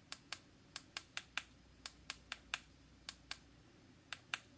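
Quiet clicks of the push buttons on a KAIWEETS KM601 digital multimeter, pressed about a dozen times at uneven spacing, several a second, as its functions are checked one by one after reassembly.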